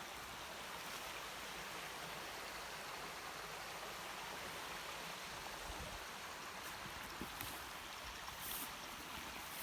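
Steady rush of a small stream flowing, with a few faint ticks near the end.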